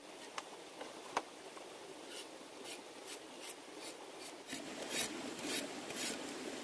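Short scraping strokes repeated about two a second, getting stronger toward the end, after two light clicks near the start.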